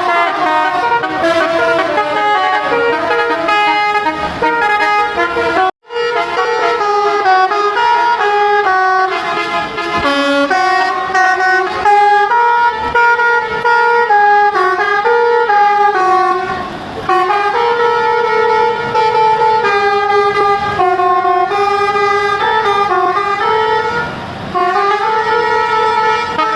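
Bus telolet horns, multi-tone air horns, playing quick stepping melodies, with several horns overlapping and taking turns. The sound cuts out for a moment about six seconds in.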